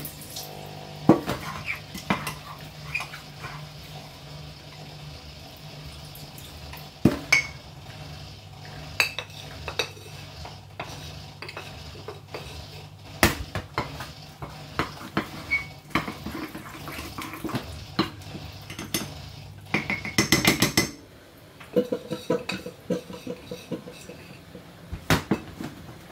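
A spoon clinking and scraping against a bowl as icing sugar and water are stirred into a thin icing, with scattered knocks of kitchenware and a quick run of fast clinking about twenty seconds in. A steady low hum underneath stops shortly after that.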